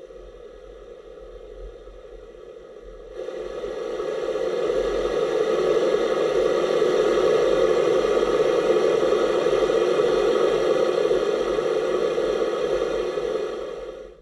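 Huina K3362 RC dump truck's sound module playing a simulated truck engine idling steadily through its small loudspeaker. It gets much louder about three seconds in as the volume is turned up, then drops back near the end.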